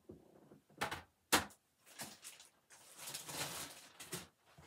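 Handling noise from hard plastic graded-comic slabs being put down and picked up. There are two sharp clacks about a second in, then about a second of rustling and sliding, then a few lighter clicks near the end.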